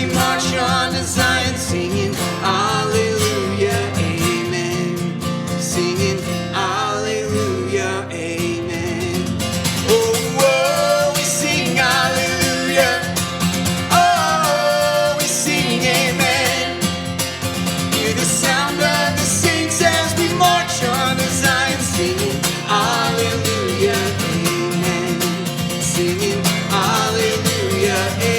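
Worship song in full band arrangement: singing voices carry the melody over acoustic guitar.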